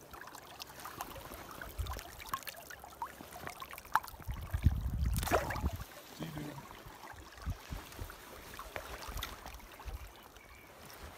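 River water lapping and splashing softly around hands releasing a brown trout. A louder low rumble comes about four seconds in and lasts roughly two seconds.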